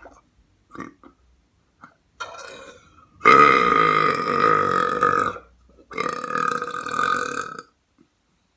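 A person belching loudly: a short belch, then two long belches of about two seconds each, with a half-second break between them. A few faint short sounds come before them.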